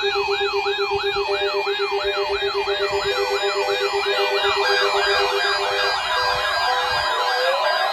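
Electronic siren tones: rapid falling sweeps repeating about three times a second over a pulsing lower beep. A second, overlapping set of sweeps joins about halfway through, and the beep stops near the end.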